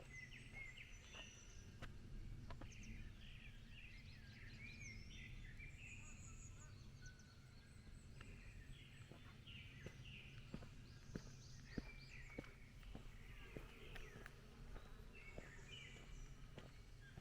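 Faint chorus of songbirds chirping and trilling, many short overlapping calls, over the soft steady tread of footsteps on a forest path.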